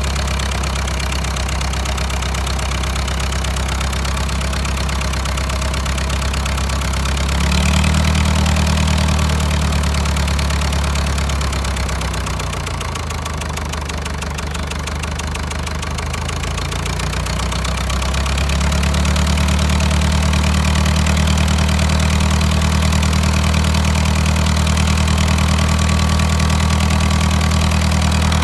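Diesel engine running. About 7 seconds in its speed rises briefly, then it slows to a lower, slower run for several seconds, and near the two-thirds mark it climbs back to a faster, steady run.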